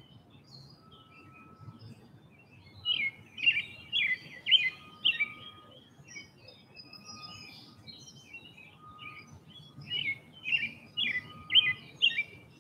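Songbirds chirping and singing, with two bursts of rapid chirping song about three seconds in and again about ten seconds in, and softer scattered chirps between.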